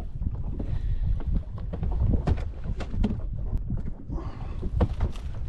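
Wind rumbling on the microphone with irregular knocks and clicks from handling on a fishing boat, and a short hiss about four seconds in.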